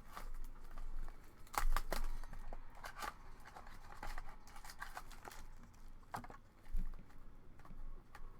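Packaging crinkling and tearing, with scattered short clicks and taps, as a box of trading cards is unwrapped and opened by hand.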